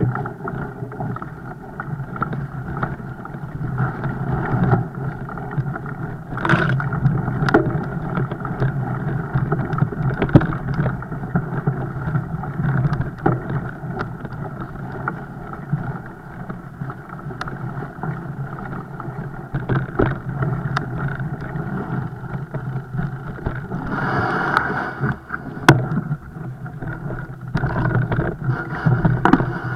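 Fat bike being ridden, heard through a camera riding along: a steady rush of wind and rolling noise, broken by frequent knocks and rattles from the bike over rough ground.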